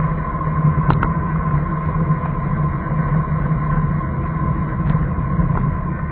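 A vehicle driving along a road: a steady engine hum with road noise, and a couple of faint clicks.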